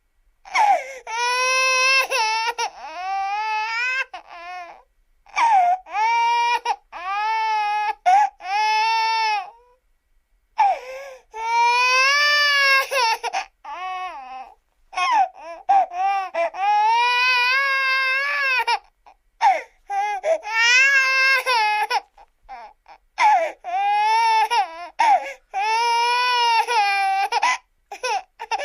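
Baby crying hard in repeated high-pitched wails, each lasting one to three seconds, with brief pauses for breath between them.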